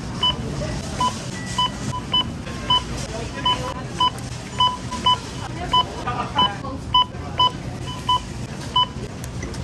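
Checkout barcode scanner beeping as items are scanned: short identical beeps at uneven intervals, about two a second.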